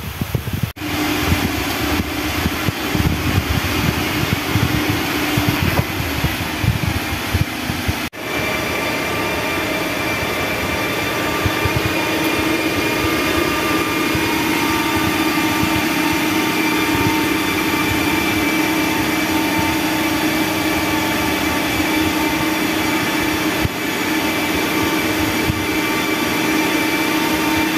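Diesel engine and drivetrain of a SANY motor grader running steadily as the grader drives along a road, with a steady whine over the engine note; there is heavier low rumble during the first several seconds.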